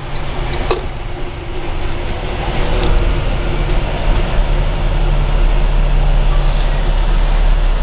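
Semi truck's engine and road noise heard from inside the cab while driving, growing louder over the first three seconds and then holding steady.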